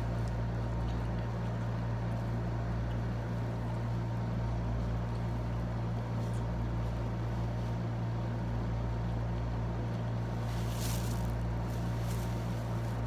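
Window air conditioner running with a steady low hum and drone. A few short crisp eating sounds come near the end.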